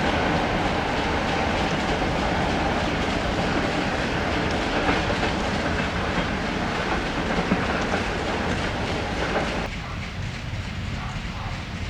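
Passenger train carriages rolling past on jointed track, wheels clicking over the rail joints. About ten seconds in, the noise drops suddenly to a quieter, lower rumble.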